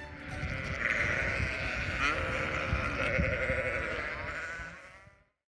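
Sheep bleating, several wavering calls overlapping, fading out near the end.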